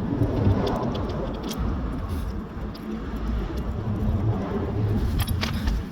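Light metallic clicks and clinks of hand tools and sidestand parts being handled, over a steady low rumble.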